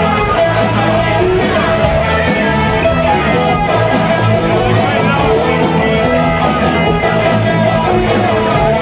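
Live rock band playing loud, guitars over a steady beat.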